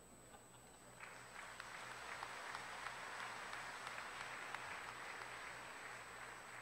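Congregation applauding, starting about a second in and slowly fading near the end.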